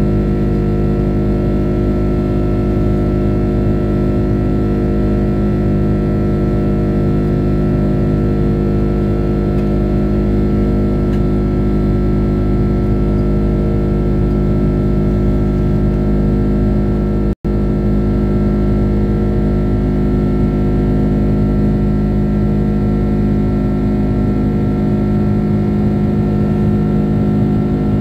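Rolls-Royce Trent 700 turbofan engines of an Airbus A330-200 heard from inside the cabin in flight: a steady, loud drone with several held tones over a low rumble. The sound cuts out for a split second about seventeen seconds in.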